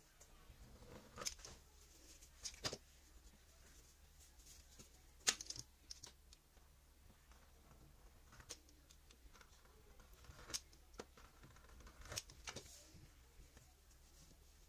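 Fluted pastry wheel cutting rolled-out dough on a stone countertop: quiet rolling and scraping with a few scattered sharp clicks.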